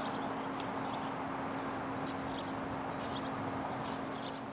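Barn swallow giving short, high twittering chirps several times at its mud nest, over a steady rushing background noise with a low hum.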